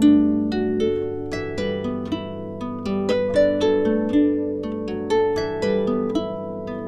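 Background music of plucked strings, several notes a second that each ring and fade, over held lower notes.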